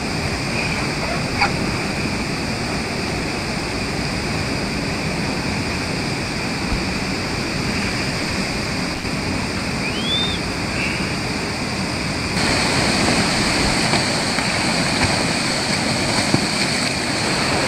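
River water rushing and splashing over rocks in a small pour-over, a steady whitewater noise close to the water's surface, with a brief high rising chirp about ten seconds in. About two-thirds of the way through it changes to the louder, brighter noise of a foaming rapid.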